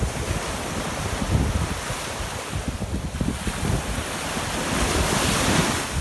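Small waves breaking and washing up a sandy shore, the foam hissing, with wind buffeting the microphone. The wash swells to its loudest near the end.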